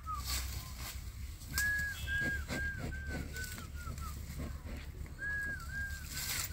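A bird singing: a phrase of clear whistled notes that fall in pitch and come faster toward the end, repeated three times.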